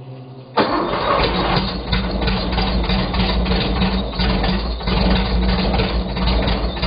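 An engine catches about half a second in and runs steadily with a fast, even firing beat.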